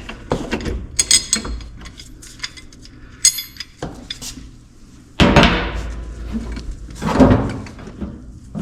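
Metal tools and parts clinking and clanking while a wheel-bearing press tool is positioned on a car's rear hub, with two longer, louder rough noises about five and seven seconds in.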